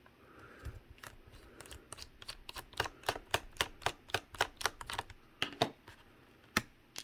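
Rapid light clicks, about three or four a second, from a small screwdriver with a Torx T6 bit working the screws out of a laptop's bottom panel; the clicks thin out near the end.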